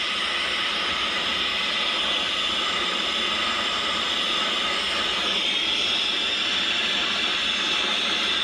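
Soldering torch flame hissing steadily as it heats a sweat-solder joint from underneath, bringing the metal up to the temperature at which the solder flows.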